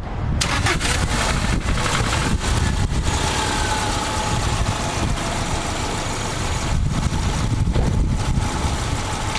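2000 Subaru Outback's boxer engine idling steadily, with an even hiss over it starting about half a second in.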